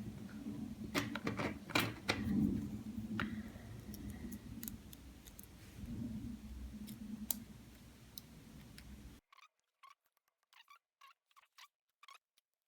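Lock picking on a Squire SAL/40 padlock: small metal clicks and scrapes of a pick and tension wrench working the pins in the keyway, over a low rumble of the lock being handled. About nine seconds in the background drops away abruptly, leaving only faint, sparse clicks.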